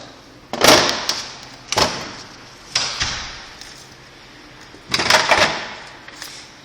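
Double-sided tape being pulled off its roll in four quick rasping strips, a second or two apart, each one fading away fast; the last pull is longer.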